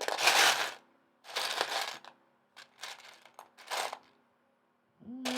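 Loose plastic Lego pieces clattering as a hand sifts through them, in several short bursts of rattling.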